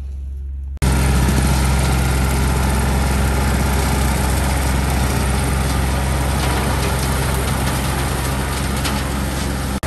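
John Deere compact tractor's diesel engine running steadily as the tractor drives through tall grass towing a rake. It comes in abruptly about a second in, after a quieter low hum.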